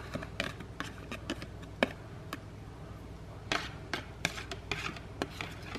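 Metal fork scraping and tapping against a plastic steamer basket and bowl while scraping food out: a scattering of short, light clicks and scrapes, irregularly spaced.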